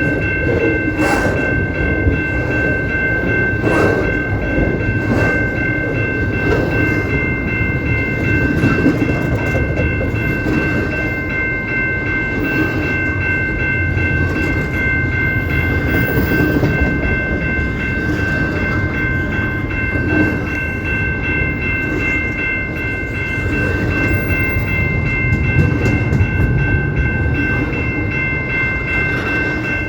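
CP Rail train passing with its horn sounding one long, unbroken chord of three high tones, over the rumble and clatter of the wheels on the rails.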